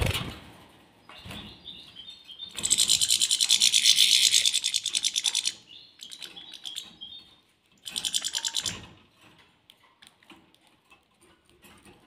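Small cage birds, European goldfinches and a canary, at a seed dish. Two bursts of rapid, high, buzzy pulsing: a loud one of about three seconds starting near three seconds in, and a shorter one around eight seconds. Light scuffs and taps come in between.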